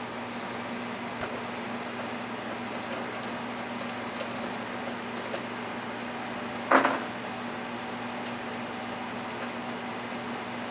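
Drill press running with a steady hum. About two-thirds of the way through comes a short, loud grinding screech as the countersink bit is fed into the tapped hole in the steel pry bar.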